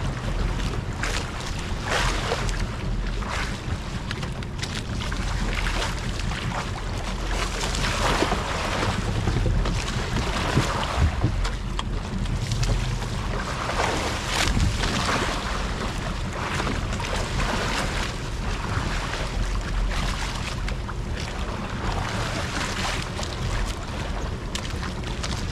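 Wind buffeting the microphone aboard a small wooden outrigger fishing boat (jukung) at sea, over a steady low rumble and the wash of the sea, swelling in gusts every few seconds.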